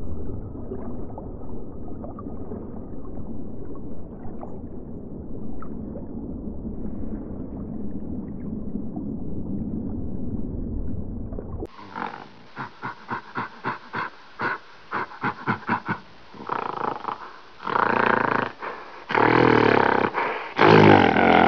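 Animal sounds from two clips. For about eleven seconds there is a low, rough rumbling call; then a different animal gives short pitched calls, a few a second, which grow longer and louder near the end.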